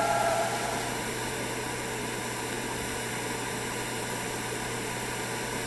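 Music cuts off right at the start and dies away within half a second, leaving a steady hiss with a faint low hum.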